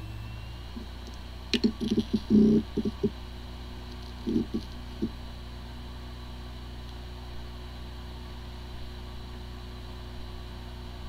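Hard drive with spinning platters running with a steady hum, with a short run of low knocks and a sharp click about one and a half seconds in and a few more knocks a few seconds later. Disks spinning but the drive not accessible: the symptom of disk firmware corruption.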